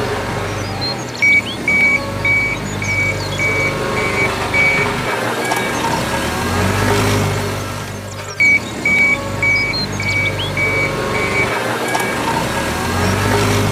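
Vehicle running with a low steady hum and a warning beeper: two runs of short high beeps, about two a second, the second run starting about seven seconds after the first.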